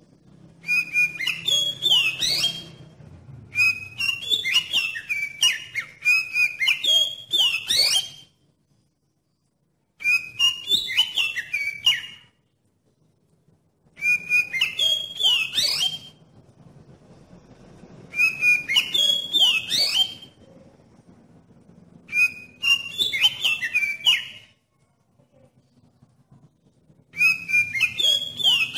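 Oriental magpie-robin (kacer) in full song: bursts of quick, varied whistled phrases about two seconds long, repeated about seven times with short pauses between.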